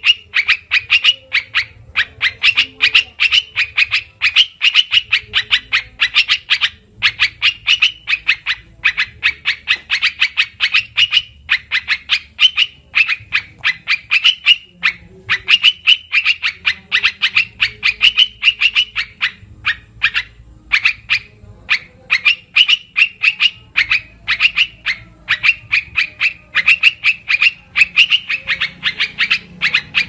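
Bird-lure recording of a bulbul (trukan, merbah belukar) calling: rapid runs of short chattering notes repeated over and over, with short pauses between runs.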